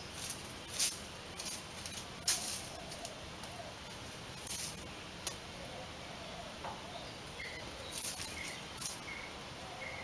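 Rabbit digging in loose sandy soil: short bursts of scratching and scraping as it paws the sand, several in the first few seconds and a couple more near the end.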